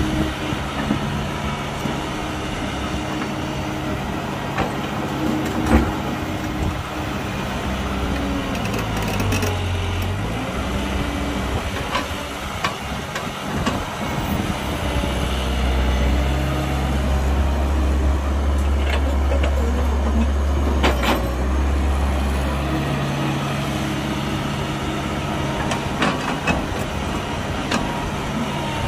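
Diesel engines of an excavator and a dump truck running steadily, with a deeper, heavier engine note for several seconds in the middle and a few scattered knocks.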